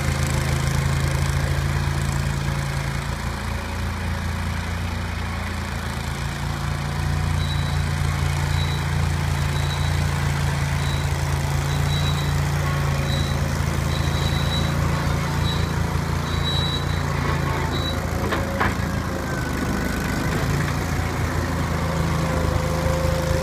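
Engine of a Gehl 3000 skid steer loader running steadily under working load, its pitch dipping briefly a couple of times, while it rolls a homemade drum roller over shale. Partway through, a high beep sounds about once a second for roughly ten seconds.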